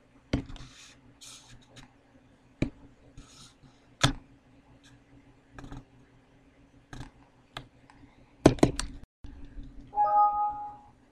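Scattered computer clicks and taps over a low steady hum, with a quick double-click about eight and a half seconds in. About a second later comes a single Windows warning chime, a short pitched tone of several notes, marking a warning dialog popping up.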